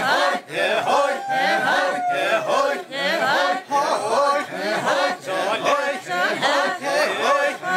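A group of voices singing a chanted folk song over a steady beat of about two strikes a second.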